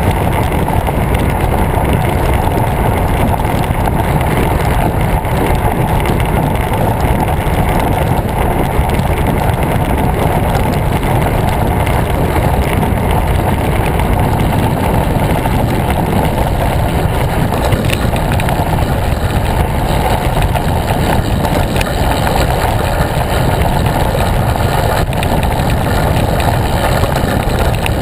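Steady rushing wind noise on a bicycle's handlebar-mounted camera microphone while the road bike rolls along at speed, mostly a low, even roar with no breaks.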